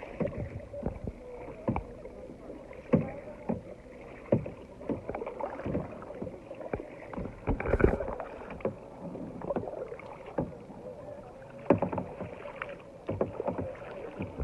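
Kayak being paddled on open water: irregular sharp knocks and splashes of the paddle, about one a second, over a steady low wash of water.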